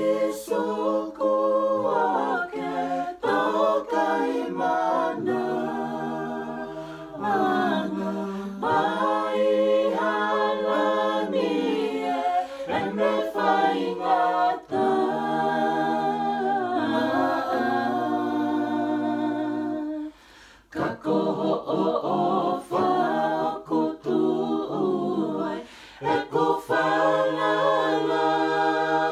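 A mixed group of men and women singing a Tongan gospel song a cappella in harmony, with sustained held notes. The singing breaks off briefly about two-thirds of the way through, then resumes.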